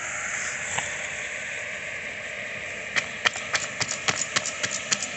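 A hand-held stone pounding on a leaf laid over a plastic bag on a concrete floor, crushing something: sharp knocks at about four a second, starting about three seconds in. Under it is a steady sizzling hiss of frying in the pan.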